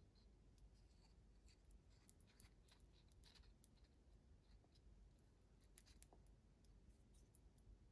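Near silence, with faint light scratching and ticking of a small brush spreading epoxy over the base of a carved wooden decoy head.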